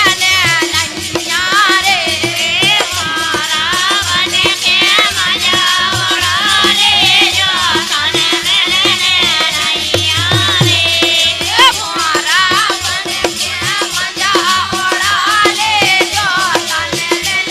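Indian folk song music: a shaken rattle keeps a steady, dense beat under a bending, ornamented melody.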